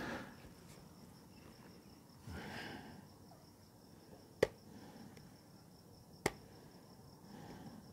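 Crickets chirping steadily and faintly, with two sharp clicks from a laptop keyboard about two seconds apart, and a soft rustle a little over two seconds in.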